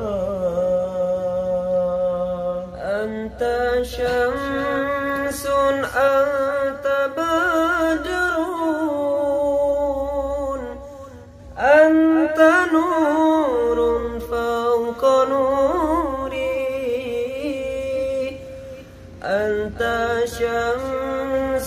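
A young man's solo voice singing an Islamic devotional song (sholawat) in long, ornamented notes with vibrato, pausing briefly for breath twice.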